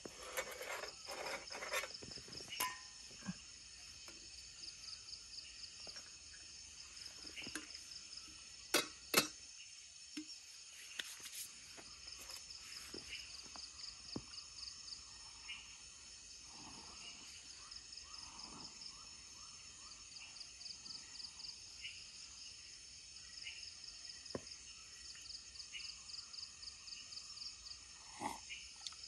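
Rainforest insects keeping up a steady high-pitched chorus with a pulsing trill, over scattered clicks and knocks; two sharper clicks come close together about nine seconds in.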